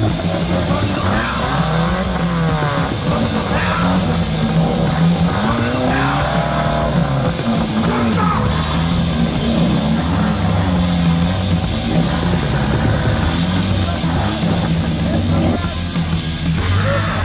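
Rock music playing over a Jeep off-roader's engine, which revs up and down again and again under load.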